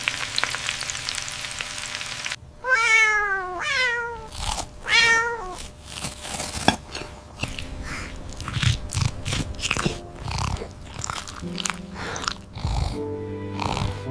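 A steady hiss, then a cat meowing three times, each call sliding down in pitch, followed by a run of short crackling clicks; music comes in near the end.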